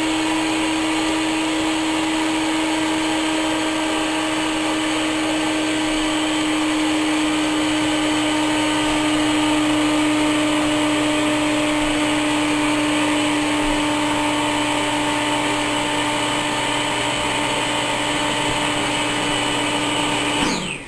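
Electric air pump of an EZ Bed inflatable air bed running steadily as it inflates the mattress, then shutting off near the end with a falling whine as the motor winds down.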